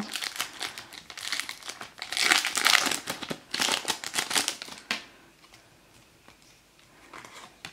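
Foil booster-pack wrapper being torn open and crinkled in several crackly bursts, stopping about five seconds in.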